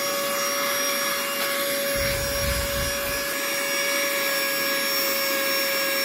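Small cordless handheld vacuum cleaner running with a steady whine, its brush nozzle working over hard plastic. A brief low rumble comes about two seconds in.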